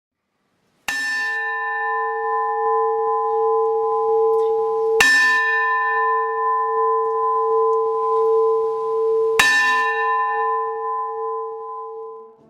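A large bell struck three times, about four seconds apart, each stroke ringing on in a long steady hum until the next; the last fades out near the end.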